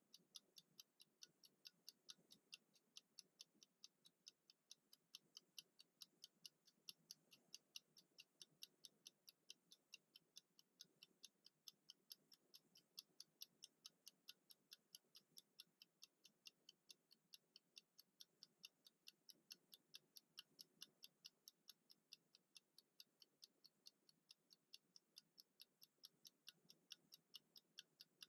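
Mechanical kitchen countdown timer ticking: a faint, fast, even run of light clicks, a few a second, from its clockwork escapement as it runs down.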